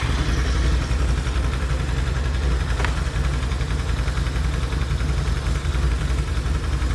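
Can-Am Outlander ATV engine idling steadily, running so the power steering is on. There is a light click about three seconds in.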